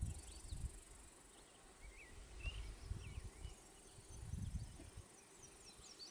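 Faint woodland ambience: small birds chirping in short quick high notes, more of them near the end, over a steady high insect hiss. Low rumbles come three times, at the start, about two and a half seconds in, and about four seconds in.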